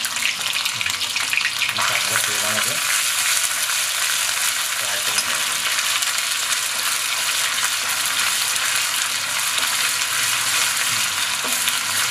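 Ginger-garlic, coriander and chilli paste sizzling in hot oil with browned onion in a kadhai. It is a steady frying hiss that gets a little louder about two seconds in.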